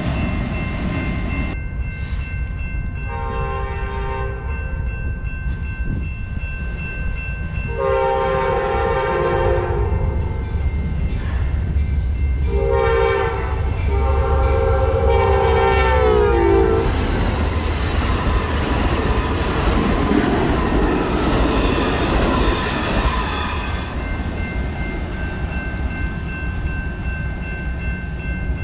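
Amtrak Southwest Chief, led by a GE P42DC locomotive, sounding its horn for the grade crossing in four blasts: long, long, short, long. The last blast drops in pitch as the train comes by, and then the passing train rumbles and clatters. A steady crossing-bell tone rings underneath.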